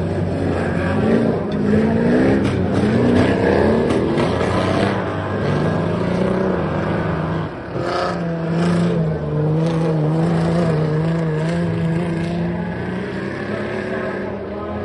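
Several all-wheel-drive dirt-track racing cars running laps together, their engines revving up and down as they go through the corners.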